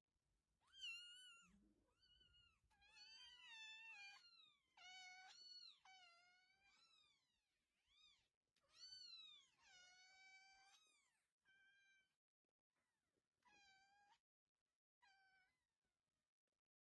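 A cat meowing over and over, about a dozen meows in a row that rise and fall in pitch, with short pauses between them.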